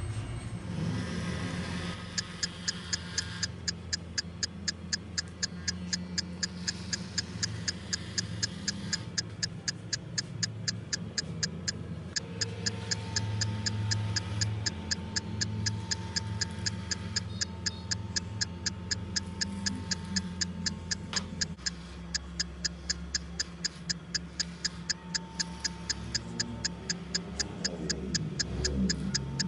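Clock ticking, fast and even at about three to four ticks a second, starting about two seconds in, over a low steady hum.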